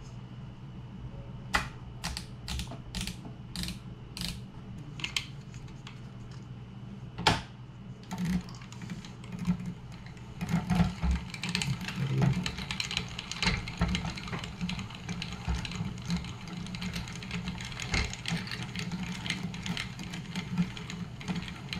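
Quantum Accurist baitcasting reel being cranked to wind braided line onto its spool under tension: a handful of separate clicks at first, then from about eight seconds in a steady run of fast mechanical ticking from the reel's gearing.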